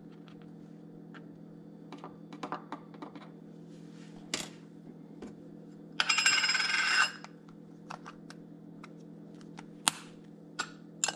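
Small clicks and taps of a plastic measuring spoon against a glass spice jar and of jars set on a granite countertop. About six seconds in, a metal jar lid rattles on the countertop for about a second, the loudest sound. A steady low hum runs underneath.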